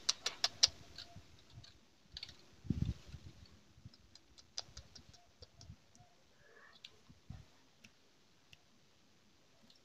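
A quick run of sharp clicks in the first second, then scattered clicks and taps with two dull low thumps, about three seconds in and again about seven seconds in; no clear birdsong.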